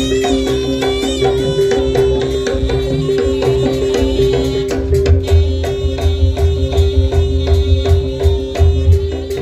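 Javanese jaranan music: a percussion ensemble with hand drums and two repeating pitched tones, with heavier low drum beats joining about halfway through.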